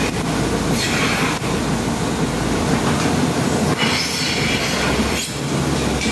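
Rotary milking platform turning, a steady rolling rumble with metallic squealing like a train's wheels, over the running milking machinery. Short hisses of air come about a second in and again around four to five seconds in as milking cups go onto the cows.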